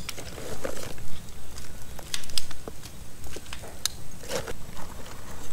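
Small wood kindling fire crackling in a steel fire ring, with scattered sharp pops and clicks, while a paper bag rustles and kindling sticks are pulled out of it.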